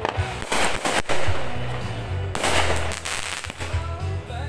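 Fireworks going off: crackling bursts about half a second in and again about two and a half seconds in, with a single sharp bang just after one second.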